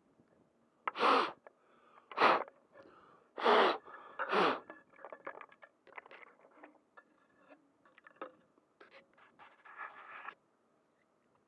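Hands handling an action camera right at its microphone: four loud, short rushing bursts in the first five seconds, then light scratches and clicks of fingers on the housing.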